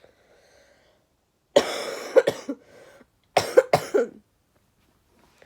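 A person coughing: one longer cough about a second and a half in, then two short quick coughs about two seconds later.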